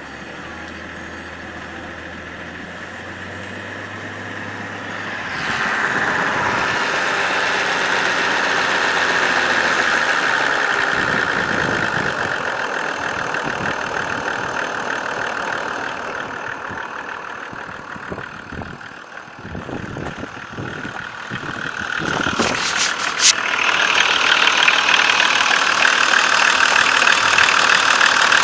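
BMW M51 straight-six turbodiesel idling with a knock that its owner says appears only as the engine warms up and fades above about 2000 rpm; the cause is unknown to him. The sound grows louder about five seconds in and again near the end, with a few sharp clicks shortly before.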